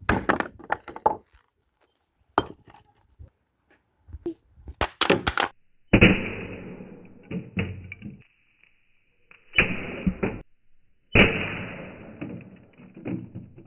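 Cartoon smashing sound effects: a few sharp knocks and clicks, then three loud crashes about two seconds apart, each tailing off as it fades.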